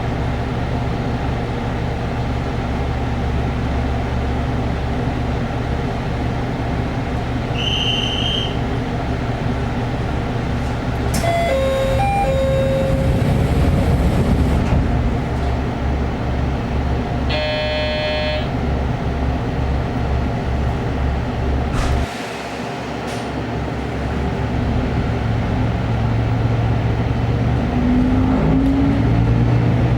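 Diesel railcar engine running with a steady low throb. Short electronic tones sound about 8 and 11–14 seconds in, and a brief horn toot about 18 seconds in. The engine drops back a little after about 22 seconds, then grows louder with a rising note near the end as the railcar pulls away.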